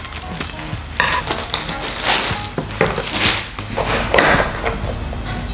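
Plastic shrink-wrap being cut with scissors and pulled off a small cardboard box, with irregular crinkling and rustling.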